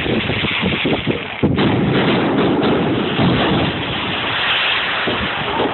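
Fireworks exploding in a dense barrage: overlapping bangs and booms that merge into a continuous rumble, with a sharp bang about one and a half seconds in.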